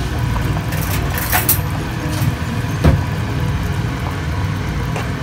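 A pot of water with meat and vegetables at a rolling boil: a steady, low bubbling rumble. A few light clicks come through about a second in, and a sharper knock about three seconds in.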